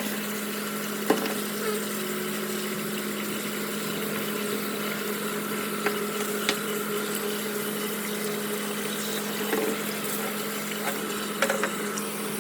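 Electric air blower running steadily, a constant hum with a rushing hiss, drying a washed air-conditioner filter. A few light clicks sound over it.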